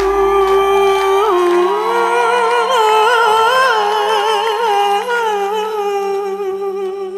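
Female solo voice singing one long held note, ornamented with quick wavering runs in the middle and settling back onto the held pitch near the end. Underneath are a steady low drone and a deep boom that fades out over the first second and a half.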